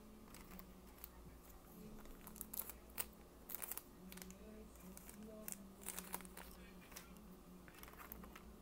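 Thin clear plastic crinkling and crackling as it is handled, in irregular clusters of small clicks, over a faint steady hum.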